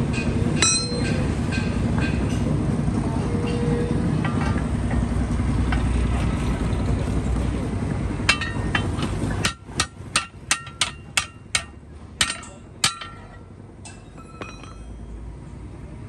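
A run of about ten sharp metal-on-metal strikes with a ringing note, roughly three a second, as a steel tyre bar is worked against a steel truck wheel rim to free the tyre. Before them a steady low rumble runs and stops suddenly about nine and a half seconds in.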